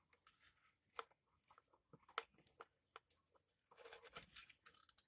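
Near silence, with a few faint clicks and light handling rustle as hands turn over a repaired electrical cord.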